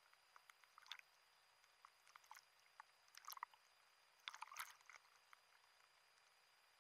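Faint sea water splashing and trickling around the camera as small waves wash over it. The sound comes in short crackling clusters, about a second, two, three and four and a half seconds in, and the last cluster is the loudest.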